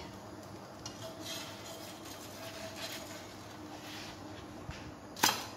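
Quiet kitchen background with a faint steady hum and a few soft rustles, then one sharp clack about five seconds in: a metal spatula knocking against the crepe pan as the cooked crepe is lifted out.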